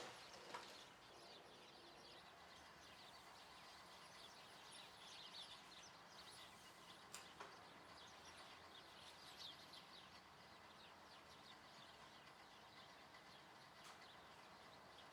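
Near silence with faint bird chirps throughout and a couple of soft clicks.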